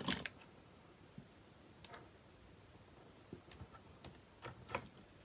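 Light, scattered clicks and taps of small craft pieces being handled and set down on a table, with a sharper cluster of clicks at the very start.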